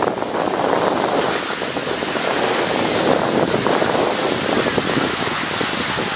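Skis sliding and scraping over packed snow, a steady grainy hiss.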